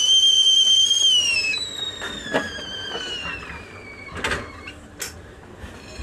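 Stovetop whistling kettle whistling at the boil; about a second in the whistle starts to slide down in pitch and fade, dying away by about four seconds in. A few clicks and a metal clatter sound as the kettle is handled and lifted off the stove.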